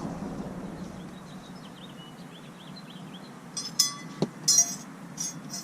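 A few light metallic clinks and a sharp click, like small metal parts or tools knocking together, with faint bird chirps earlier.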